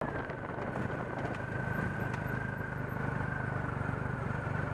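Motorcycle engine running steadily at low road speed, heard from the bike itself, with a steady high whine over it.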